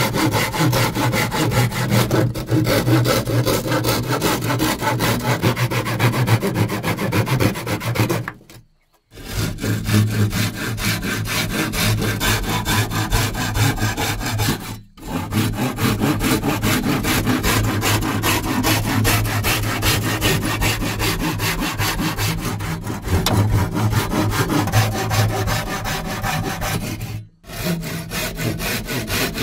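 Hand saw cutting through bamboo tubes in quick back-and-forth strokes. The sawing stops briefly three times.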